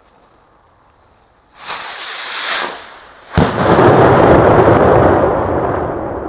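Salute rocket with a flash-powder bang charge: a loud hissing whoosh for about a second as it lifts off, then about a second and a half later a single sharp bang as the charge bursts overhead, followed by a long rumbling echo that slowly fades.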